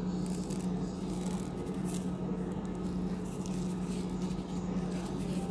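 Steady low hum of a kitchen appliance, with a few faint light ticks as sesame seeds are sprinkled by hand onto dough balls on a metal baking tray.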